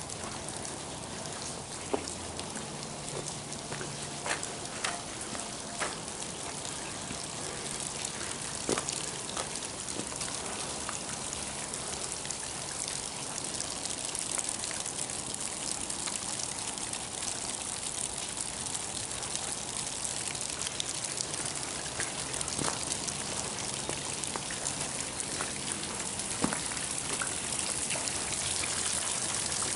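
Water dripping and trickling from a rock overhang onto stony ground: a steady spattering hiss with scattered sharper drips, growing a little louder near the end.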